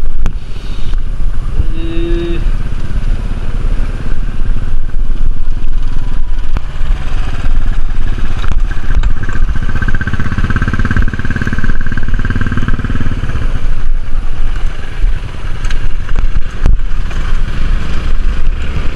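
A motor vehicle's engine running loud and steady, with a higher whine for a few seconds near the middle.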